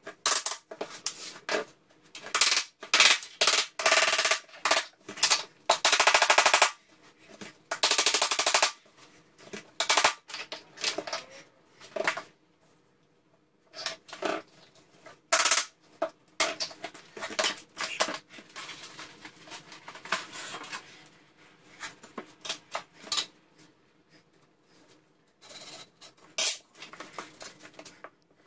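Hammer tapping 12mm laminate flooring planks together, a long uneven series of sharp knocks, some in quick runs that blur into one another, thinning out and growing quieter in the second half.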